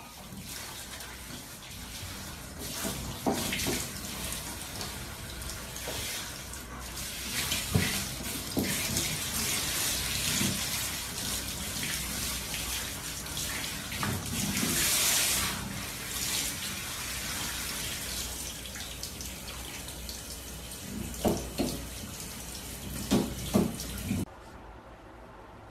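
Handheld shower head running, spraying water over a dog's coat and the shower floor: a steady hiss of water, swelling louder about halfway through, with a few short bumps. The spray cuts off suddenly near the end.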